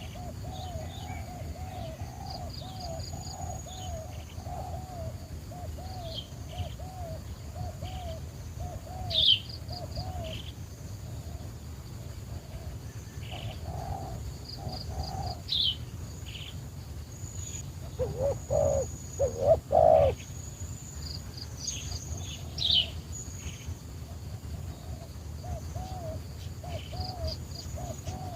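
Doves cooing in long runs of short, arched notes repeated a few times a second, louder for a couple of seconds about two-thirds of the way through, with smaller birds chirping and whistling higher above them.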